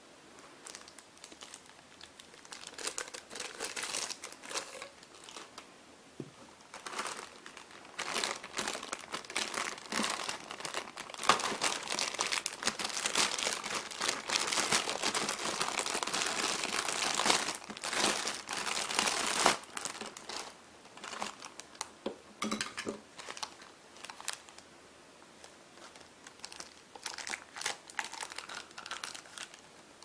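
Clear plastic bag crinkling and rustling as hands handle it and work a toy vacuum's ribbed hose and nozzle parts out of it. The crinkling is densest and loudest from about eight seconds to about twenty seconds in, with scattered rustles before and after.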